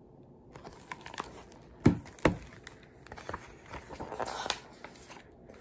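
Paper rustling and handling noise as a page of a large hardcover picture book is turned, with scattered clicks and two sharp knocks about two seconds in.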